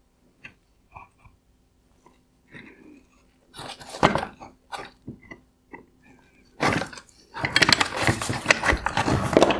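Pliers and gloved hands working a clip on a plastic LED fog-light housing: scattered small clicks, a sharper knock about four seconds in, then a dense run of clattering and scraping from about seven seconds in as the housing is handled on a wooden bench.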